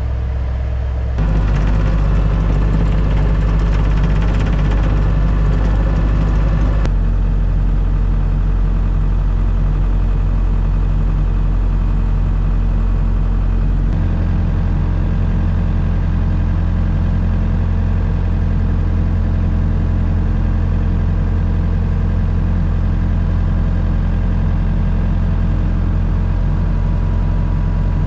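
Skid steer engine running steadily, heard from inside the operator's cab, its note shifting about a quarter of the way through and again halfway.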